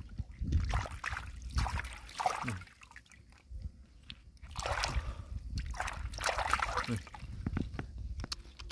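Sloshing and splashing in shallow muddy water in irregular bursts, with small wet clicks, as a person wades and gropes in the mud for clams.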